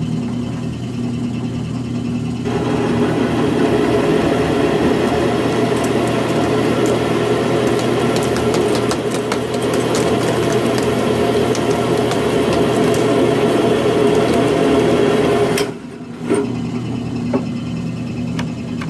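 Drill press running, then a 1-inch annular cutter biting into 3/8-inch mild steel about two and a half seconds in: a loud, steady grinding cut with a patter of tiny chip clicks. It stops suddenly near the end as the cut finishes, leaving the press motor humming with a few clicks.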